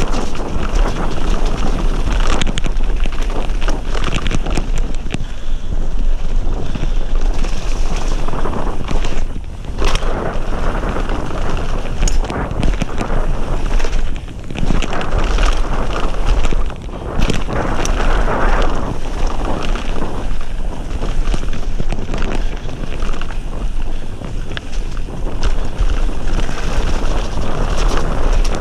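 Wind buffeting an action camera's microphone on a fast mountain bike descent, over the rumble of knobbly tyres on a wet dirt-and-gravel trail, with frequent knocks and rattles as the bike hits bumps. The noise eases briefly a few times.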